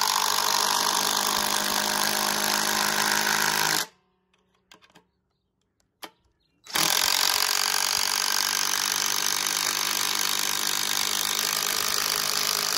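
DeWalt DCF885 brushed impact driver hammering a large lag bolt into a pre-drilled 4x6 wood block, a dense, fast, even rattle of impacts. It stops about four seconds in for nearly three seconds, with a few small clicks, then starts again and keeps driving the bolt down.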